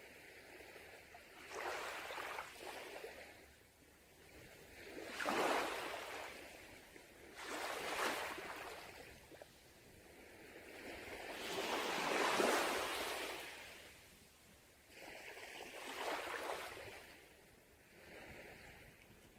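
Sea waves breaking on a beach, the surf swelling and fading in about five surges, the loudest about twelve seconds in.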